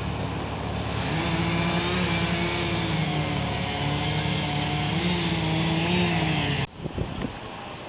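A motor vehicle engine running, its pitch stepping up about a second in and wavering. It cuts off abruptly near the end, leaving a quieter hiss with a couple of low thuds.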